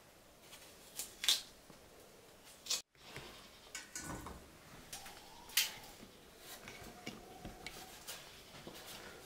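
Curved knife blade scraping the skin off a chayote in short, sharp strokes, with a soft knock about four seconds in as a peeled chayote is set into a steel colander.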